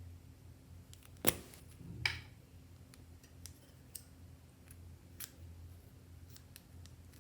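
Sharp clicks and snaps: two loud ones about a second and two seconds in, then a scatter of fainter ticks, over a low steady hum.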